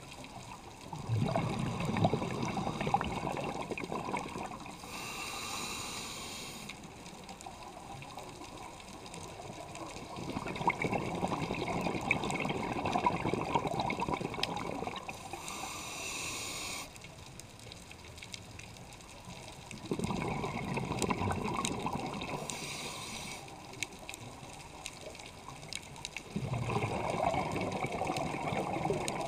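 Scuba diver breathing through a regulator underwater. Four long stretches of bubbling exhalation alternate with three shorter hissing inhalations, in a slow, even rhythm.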